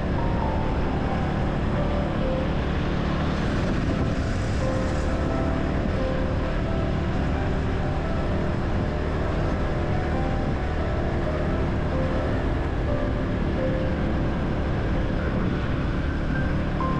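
Motorcycle riding along a road, a steady rush of engine and wind noise, with background music of short melodic notes laid over it.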